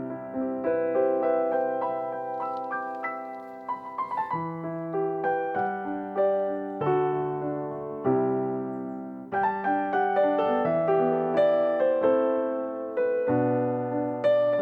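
Background music played on piano or electric piano: gentle notes and chords struck one after another, each fading away.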